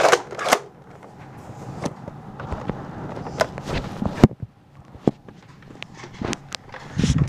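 Scattered clicks, knocks and rustling from handling a toy Nerf blaster and a phone while walking, with footsteps on carpet. The sharpest knock comes about four seconds in.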